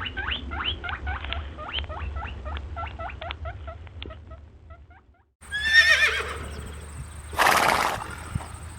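A rapid run of short chirping calls, about four a second, slowing and fading out. Then a horse whinnies about five and a half seconds in, and snorts about two seconds later.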